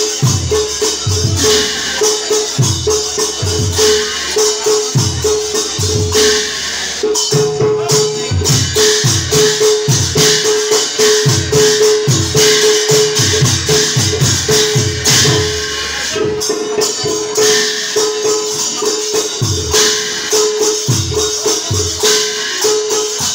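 Live music for Assamese Bhaona dance: hand-drum strokes in quick, changing rhythmic patterns with jingling small cymbals over them, and a held note that sounds again and again.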